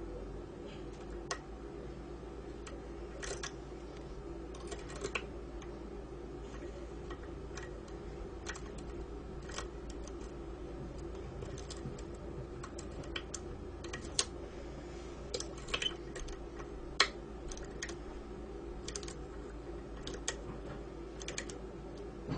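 Small metal clicks and taps at an irregular pace, from a lock pick working the telescopic pins of a Mul-T-Lock cylinder, pushing pins up one by one to find the one holding the plug. A steady low hum runs underneath.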